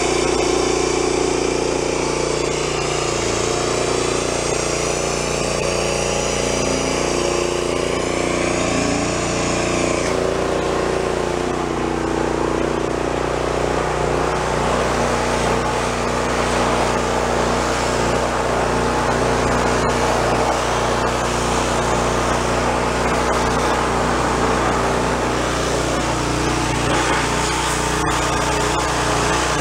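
Gasoline pressure washer's small engine running steadily under load, with the hiss of the high-pressure water spray from the wand. A high wavering whine in the spray sound drops out about ten seconds in.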